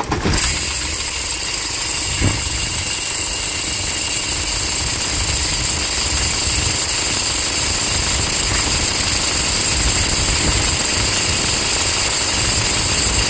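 Toyota Hilux 2.5 four-cylinder diesel idling just after starting, heard close at the accessory belt drive: a steady engine rumble with a high-pitched scraping hiss over it. The mechanic puts the noise down to the alternator and its bearing.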